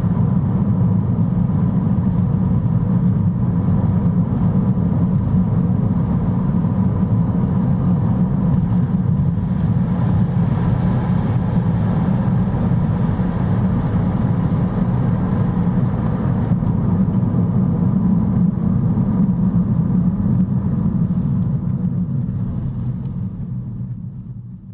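Steady low road rumble from a moving Lexus CT 200h, with a few faint ticks; it fades out near the end.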